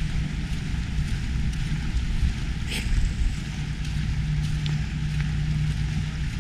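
Steady low rumble of wind on the microphone, with a constant low hum under it and a brief hiss about three seconds in.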